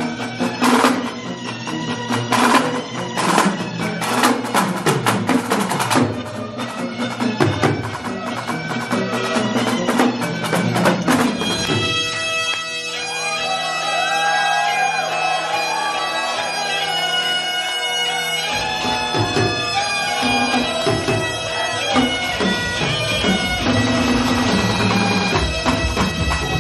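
A marching snare drum and a set of multi-tenor drums playing a fast pipe-band rhythm. About twelve seconds in, bagpipes come in with steady drones under a chanter melody, and the drums carry on beneath them.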